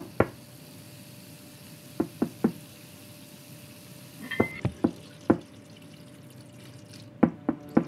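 A series of about ten sharp knocks and thuds at irregular intervals, some in quick runs of two or three, over a faint steady hiss.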